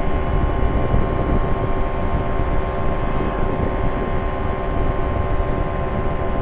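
Quad City Challenger II ultralight in cruise flight: its engine and propeller give a loud, steady drone of several held tones over a rushing noise, with no change in pitch.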